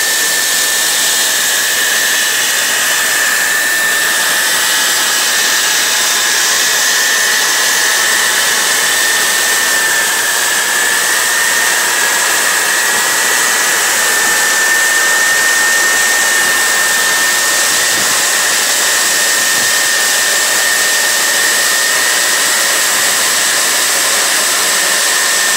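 Case IH 2366 combine running steadily while harvesting corn: an even mechanical noise with a constant high-pitched whine over it.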